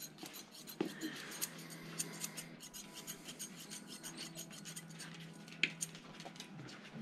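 Grooming scissors snipping through a dog's coat: a run of small, irregular snips. A faint low, steady hum runs behind them.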